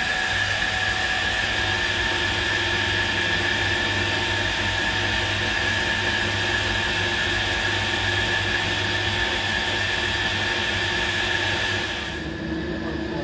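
Haas ST20Y CNC lathe milling a small steel camshaft lobe with a live-tooled 12 mm end mill under flood coolant: a steady high whine over the hiss and splash of the coolant. Near the end the sound changes abruptly, the high hiss dropping away.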